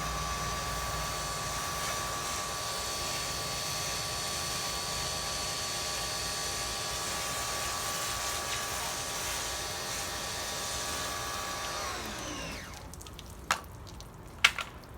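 Electric pressure washer motor running steadily with spray hiss, then winding down in pitch and stopping about twelve seconds in. Two sharp clicks follow near the end.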